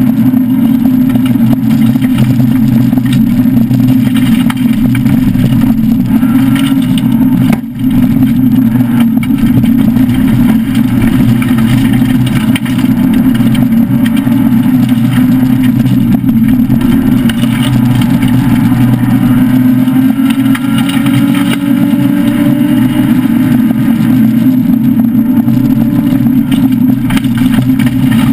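Citroën SM Bandama rally car's Maserati V6 heard from inside the cabin, running hard and steady at speed. The engine note rises slowly a little past the middle, and the sound dips briefly about eight seconds in.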